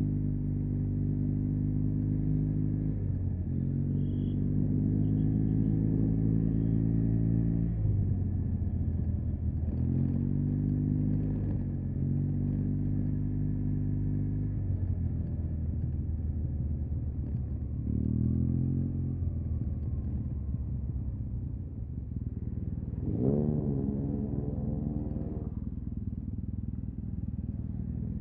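Yamaha TMAX 560 maxi-scooter's parallel-twin engine through an Akrapovic carbon full-system exhaust, riding at low speed in stop-and-go traffic. The engine note holds steady for several seconds at a time, drops back a few times, and gives one quick rising rev about two-thirds of the way through.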